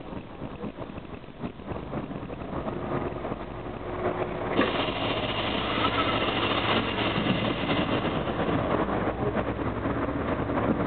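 Diesel engine and road noise of a Karosa B741 city bus driving along, heard from inside at the front of the bus; the noise steps up louder about four and a half seconds in.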